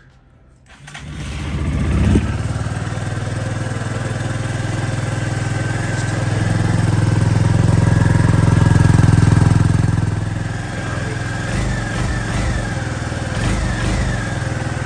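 KYMCO Spade 150i's single-cylinder engine starting about a second in and then running. It grows louder for a few seconds in the middle, settles back down, and rises briefly a few times near the end. This is the first start on its newly fitted ignition switch.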